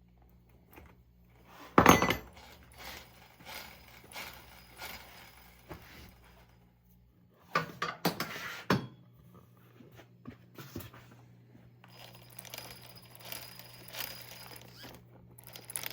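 Small metal parts and tools being handled while reassembling an RC truggy's front hub: scattered clicks and light clinks, a loud knock about two seconds in and another cluster of knocks around eight seconds in. A low steady hum runs underneath.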